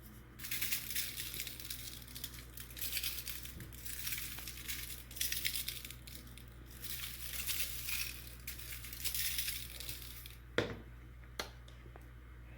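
Garlic salt being shaken from a shaker, its grains rattling out in several bursts over about ten seconds, followed by two short clicks near the end.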